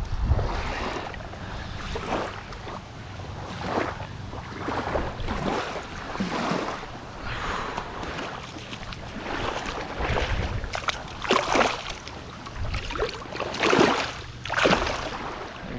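Shallow shoreline water sloshing and lapping in irregular swishes, with wind gusting on the microphone. The loudest splashes come in the last few seconds as a released snook kicks away through the shallows.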